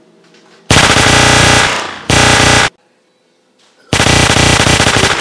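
Rapid machine-gun fire in three loud bursts: a long one about a second in, a short one right after, and another near the end, each cutting in and out abruptly.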